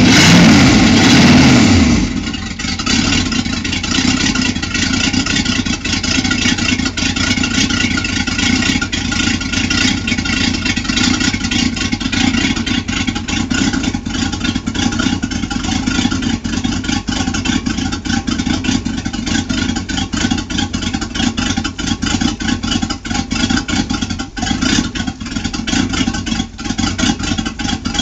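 Boat's V8 sterndrive engine running through twin wet transom exhausts, on its first sound check after winter storage. For about the first two seconds it is revved and the revs fall away, and then it settles to a steady idle.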